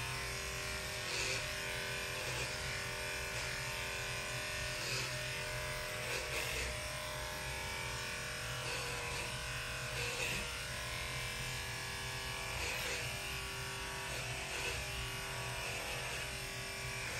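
Electric dog grooming clippers running steadily while shaving a Shih Tzu's coat.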